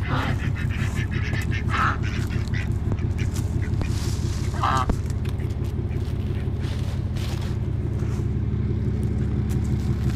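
Domestic ducks quacking, three short quacks in the first five seconds, over a steady low hum.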